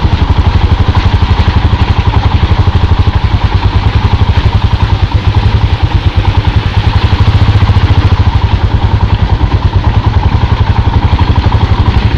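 Motorcycle engine running steadily at low revs with an even, rapid beat as the bike rolls slowly over a muddy, rocky road.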